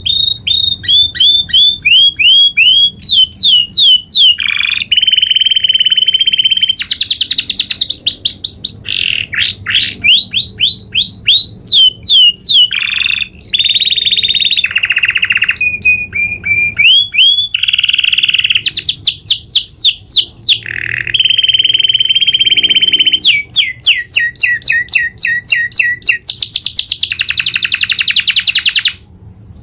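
Domestic canary singing a long rolling song of fast trills, with rapid repeated notes, sweeping slurs and held whistled tones, each phrase type switching to the next every second or two. The song breaks off briefly near the end.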